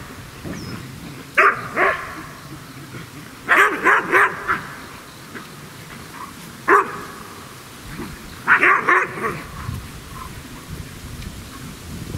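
Dog barking excitedly during play, in short runs of sharp barks: two about a second and a half in, a quick run of four near four seconds, one near seven seconds, and another run of three or four about nine seconds in.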